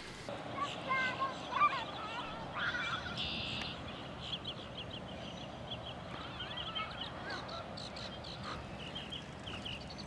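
Faint outdoor birdsong: a few lower gliding calls in the first couple of seconds, then a steady run of short, high chirps, several a second.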